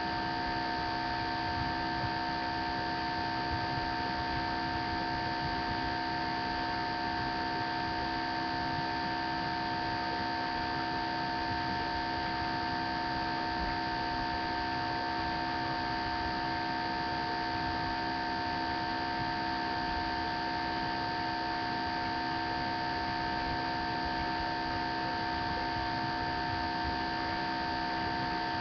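Steady electrical hum and hiss from a webcam's recording chain, with several fixed whining tones that never change; no other sound is heard.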